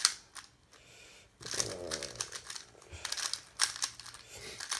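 3x3 speed cube being turned fast by hand: an irregular rapid clatter of plastic clicks as the layers snap round.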